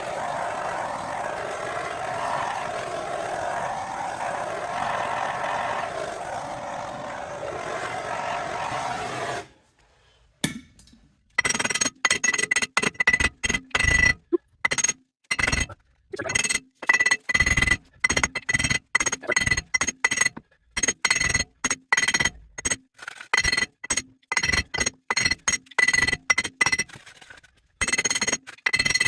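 Repeated hammer blows on a seized steel wheel hub and bearing assembly, driving it out of a truck's steering knuckle. Each strike rings with a bright metallic tone, and the strikes come irregularly, often in quick runs. Before the hammering, a steady machine-like running noise stops about nine seconds in.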